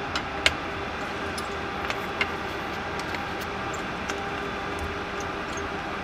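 Steady rushing of a laminar flow hood's blower, with a few sharp clicks and knocks as a hard drive is handled and set down on a metal drive stand; the loudest knocks come about half a second in and just after two seconds.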